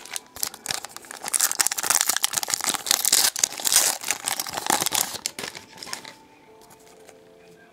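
A plastic trading-card pack wrapper being torn open and crinkled in the hands: a dense crackling that runs for about six seconds and then stops.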